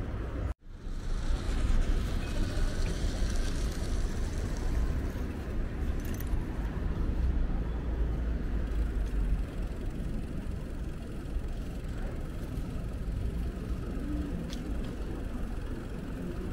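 City street traffic: a steady low rumble of passing road vehicles, with a brief dropout about half a second in.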